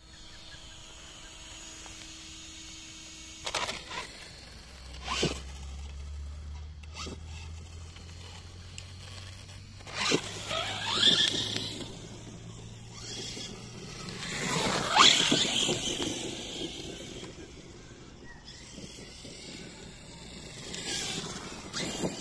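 ZD Racing Pirates 3 RC monster truck's electric motor whining up and down in pitch as it accelerates in bursts across grass, loudest about 11 and 15 seconds in. A few sharp knocks come between the runs.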